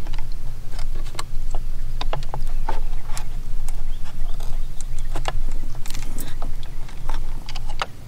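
Irregular sharp clicks and snaps of channel-lock pliers working an old, brittle plastic coolant outlet fitting, cracking it apart inside the coolant hose, over a steady low hum.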